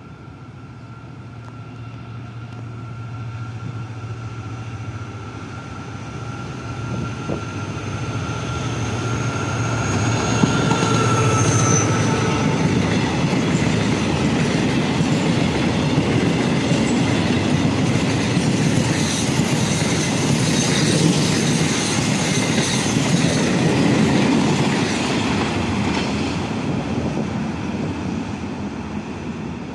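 A freight train of empty flat wagons passes behind a QSY-class diesel-electric locomotive. The engine hum and a thin high whine grow louder as the locomotive approaches, and the whine drops slightly in pitch and stops as it passes about 12 seconds in. The empty wagons then rumble and clatter over the rail joints before the sound fades near the end.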